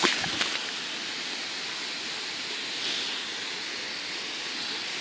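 Garden hose spray nozzle hissing steadily as it sends a fine mist of water over the grass. There are a couple of short clicks at the very start.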